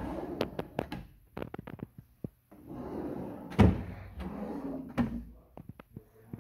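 Wooden vanity drawers being pulled open and pushed shut: a run of light clicks, then a sliding rumble along the runners, with a solid knock as a drawer stops about three and a half seconds in and another about five seconds in.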